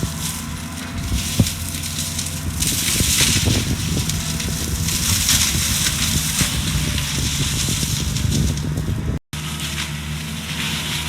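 Skid steer engine running under load while its mulching drum attachment shreds brush and wood, with dense crackling and crushing. The sound drops out for an instant about nine seconds in.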